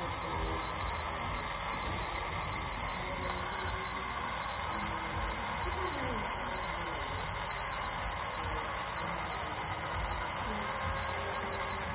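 Steady hiss of dental suction drawing air through the tubing of a cheek-retractor dry-field isolation system.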